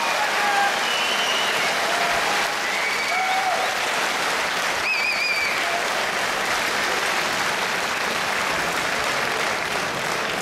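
Crowd applauding and cheering, with a few short shouts and a wavering whistle about five seconds in.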